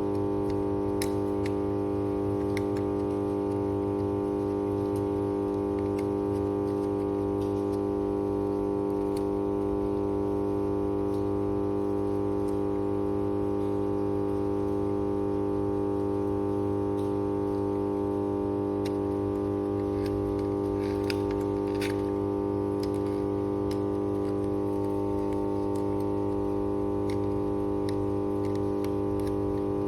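Power transformer hum: a steady, loud drone at about 100 Hz with a string of higher overtones, the mains-frequency magnetostriction hum of an energised transformer. Faint scattered clicks sit over it.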